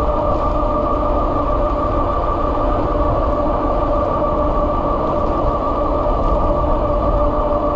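Electric bike motor whining at a steady pitch while cruising at about 32 mph, over a constant low rumble of wind and tyres.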